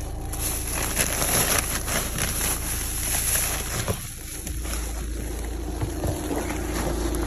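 Plastic grocery bags rustling and crackling as they are handled on a car's back seat, with wind buffeting the microphone in the second half.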